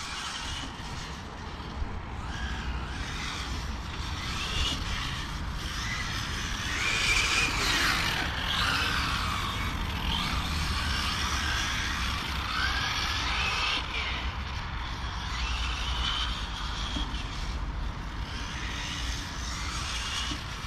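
Electric 1:8 GT RC race cars' brushless motors whining, the pitch repeatedly rising and falling as they accelerate and brake around the track. A steady low rumble runs underneath.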